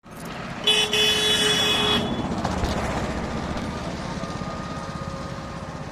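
A vehicle horn sounds once for about a second over a running engine's low, pulsing rumble.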